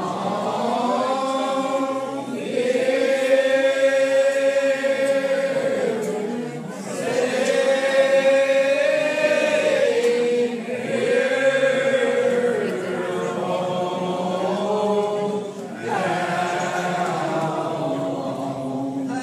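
Old Regular Baptist congregation singing a lined-out hymn unaccompanied, many voices drawing each syllable out into long, slowly bending notes, the phrases separated by short dips about every four seconds.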